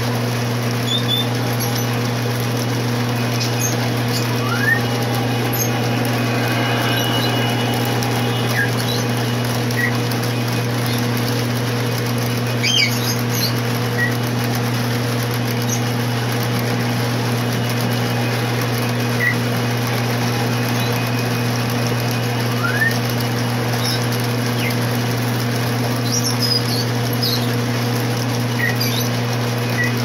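Lionel O-gauge model freight train rolling along three-rail track: a steady electric hum and rolling rumble, with occasional short high squeaks.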